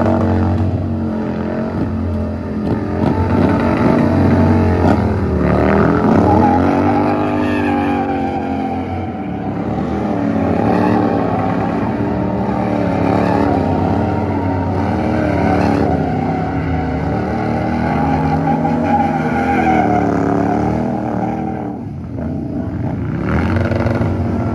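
Sport motorcycle engines revved hard over and over for burnouts, the pitch climbing and falling as the throttle is worked, with the rear tyre spinning against the pavement. The engine note dips briefly near the end.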